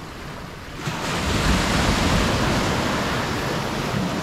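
Ocean surf breaking on the beach: the wash of the waves swells sharply about a second in, then slowly eases off.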